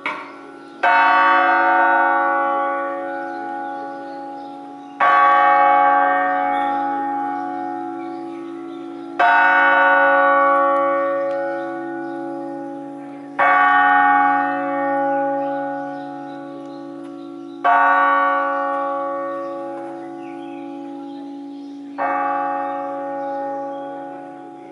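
Church bell from an eight-bell Crespi ring cast in 1951, struck six times about four seconds apart, each stroke ringing out and slowly fading, over a steady low hum.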